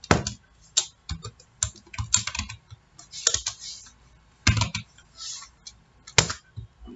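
Typing on a computer keyboard: irregular keystrokes in short runs with brief pauses, a couple of louder key clacks late on.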